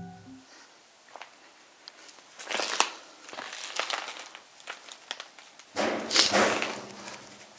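Crinkly rustling and crunching of someone moving about and handling things among debris, in two louder spells: a short one about two and a half seconds in and a longer, louder one about six seconds in, with a few faint clicks between.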